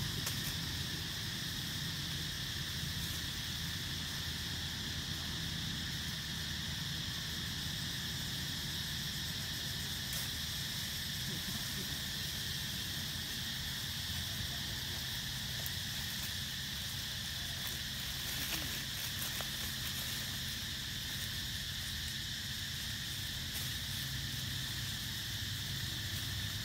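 Steady forest insect chorus, a constant high-pitched buzzing drone, over a steady low hum.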